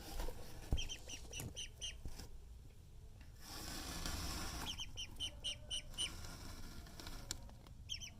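Young duckling peeping in two quick runs of short, high peeps, about seven each. A rustle comes between the runs, and a sharp thump sounds near the start.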